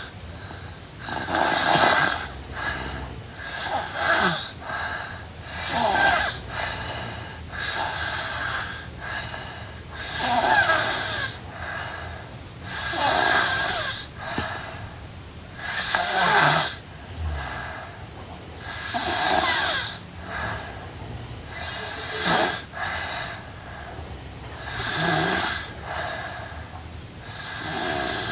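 A sleeping girl snoring, a loud snore about every two to three seconds with quieter breaths between.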